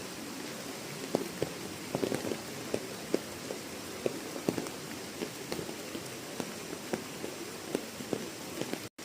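Rain falling: a steady hiss with irregular louder drops striking a surface, the sound cutting out for a moment near the end.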